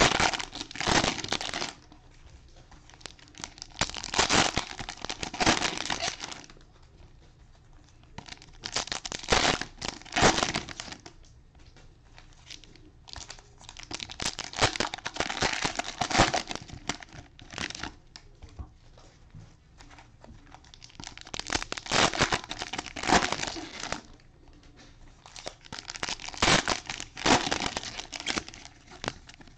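Cellophane wrappers on Panini Mosaic football card packs being torn open and crinkled by gloved hands. The crinkling comes in about six bursts a few seconds apart, with quieter gaps between.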